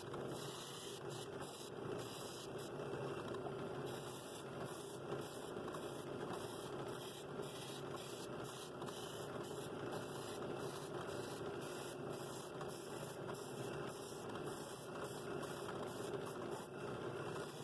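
Benchtop drill press running with a sanding drum in its chuck, sanding the edge of a wooden scroll-saw bowl pressed against it: a steady motor hum with an even hiss over it.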